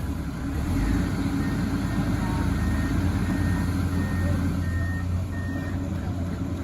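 Heavy diesel engine of the recovery machinery running steadily, picking up about a second in. A reversing or travel alarm beeps at an even pace over it for several seconds.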